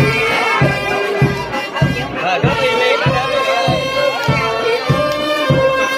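Vietnamese ceremonial music: a reedy wind instrument playing a wavering melody over a drum beating steadily, nearly twice a second.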